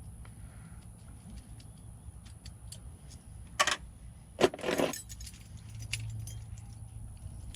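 Small metal parts clinking as a locksmith handles keys and lock pieces: scattered light ticks, a sharp clink a little over halfway through, then a brief jangle of keys, the loudest sound, just after it.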